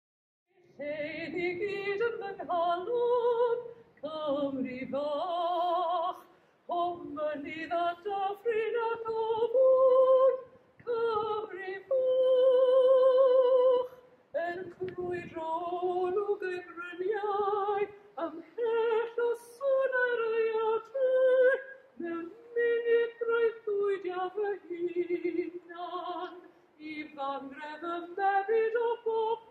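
A woman singing solo and unaccompanied, in phrases with vibrato and a long held note about halfway through.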